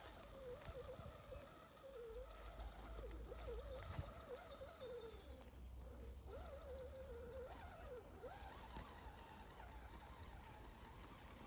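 Faint whine of an RC scale crawler's electric motor and gear drivetrain, wavering up and down in pitch with the throttle as it crawls uphill, going higher near the end. A couple of light clicks sound along with it.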